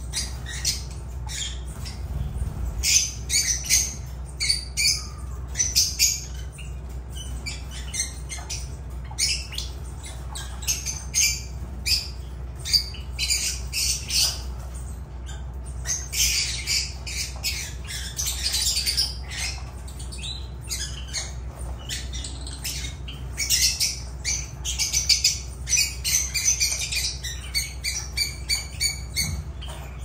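Lovebirds (Agapornis) calling: a constant stream of short, high-pitched calls in quick succession, with several busier stretches of calling, over a steady low hum.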